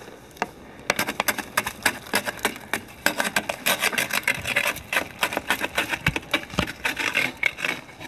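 Crunching and scraping in packed snow, a dense, irregular run of sharp clicks, as a snow shovel works through the snow.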